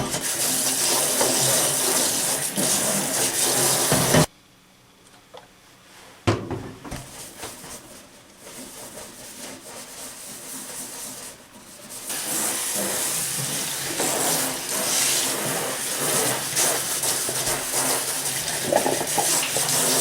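Water spraying from a sink shower head onto cookware, cutting off suddenly about four seconds in. After a short quiet spell comes some irregular knocking and scraping, and the spray starts again about twelve seconds in and runs on steadily.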